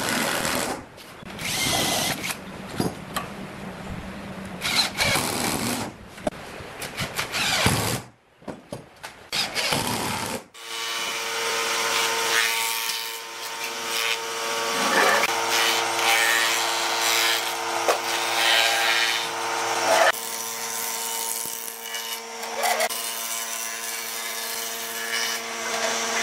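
Power tools working wood. For the first several seconds there are irregular bursts of cutting noise. After a short break, a steady motor hum runs, with louder passes as the tool works the wood.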